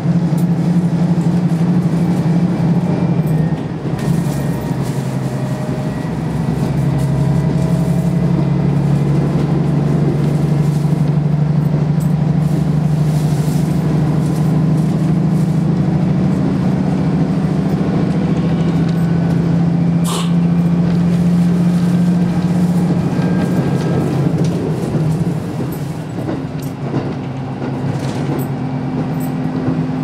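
Inside a KiHa 54 diesel railcar running at speed: the diesel engine drones steadily over wheel-on-rail noise, its note shifting a few times. A single sharp click comes about twenty seconds in.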